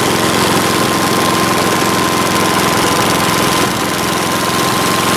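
Engine of a Mobile Dimension portable sawmill running steadily, with a steady whine over the even engine beat.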